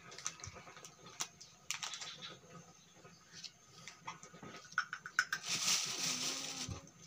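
Scattered small clicks and taps of hands handling things at a table, with a short rustle near the end, like a plastic bag being touched.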